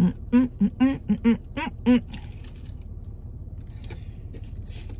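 A woman humming a quick run of about seven short, wavering notes with her mouth full of food. After that comes a faint rustle of the paper food box over a steady low rumble.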